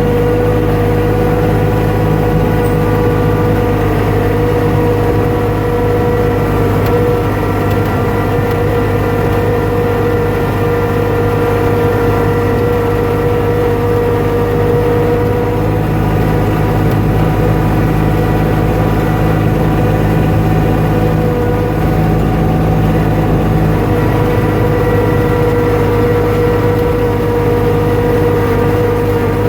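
A motor running steadily at constant speed: a continuous hum with several steady tones over a low rumble.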